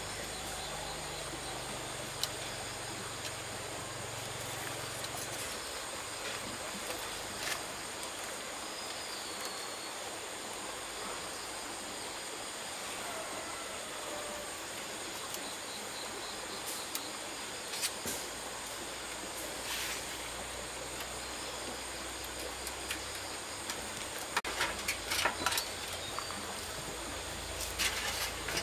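Steady outdoor hiss with a thin, high, even whine over it. A few faint clicks come in the middle, and a run of light knocks and scrapes near the end.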